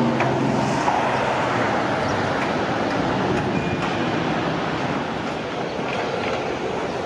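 Steady mechanical rumble of heavy vehicle or machinery noise, loudest in the first couple of seconds and easing slightly after.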